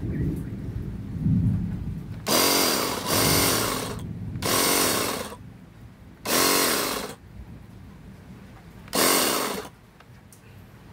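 A cordless pressure washer's newly fitted 21 V DC motor and pump run in five short bursts, each spinning up and winding down within about a second. The pump is pushing water again, so the replacement motor works. Low handling knocks come before the first burst.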